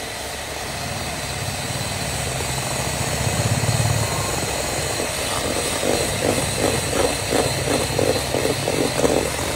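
Electric hand mixer running, its beaters whipping egg whites to a stiff foam in a steel bowl. About halfway through a rhythmic pulse of roughly three beats a second joins the steady motor hum.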